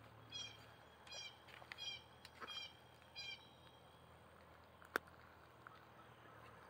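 A bird calling faintly, five short high calls in a row over about three seconds, then a single sharp click about five seconds in.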